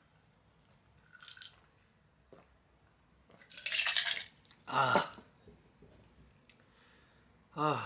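A man drinking fizzy soda from a glass: faint swallowing, then a loud breathy exhale about three and a half seconds in, followed by a short spoken exclamation ('one shot!').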